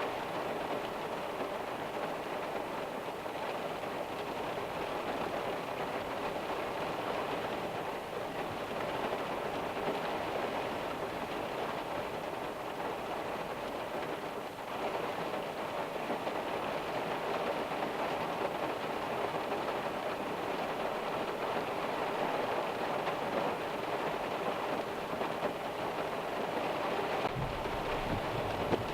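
Steady rain falling, an even hiss of drops; near the end a low rumble comes in under it.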